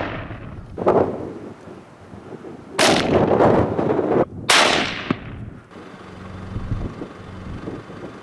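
Three rifle shots in the first five seconds, each a sharp crack followed by a rolling echo that dies away; the later two are cut off short.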